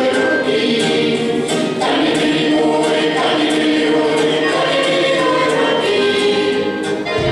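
A small group of voices singing together, holding long notes in harmony.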